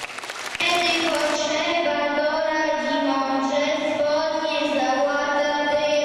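Young children singing together in long held notes, coming in about half a second in after a brief break.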